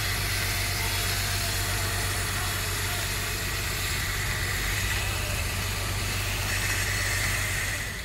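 Engines of construction machinery running steadily, a continuous low hum under a broad hiss.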